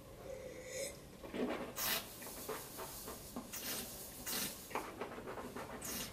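A person sipping white wine from a glass and working it in the mouth, heard as a run of irregular short hissing and rubbing noises.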